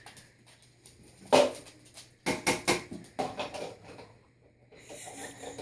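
Dishes clinking and knocking as they are set into a dishwasher rack: one sharp knock about a second and a half in, then a quick run of clatters a second later.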